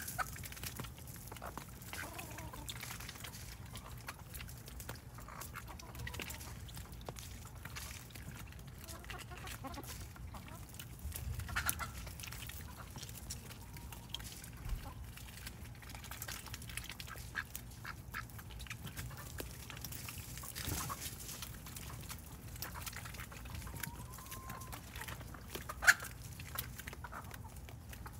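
Backyard ducks and chickens feeding at a tub of water hyacinth: scattered short quacks and clucks over a steady low background, with one sharp click near the end.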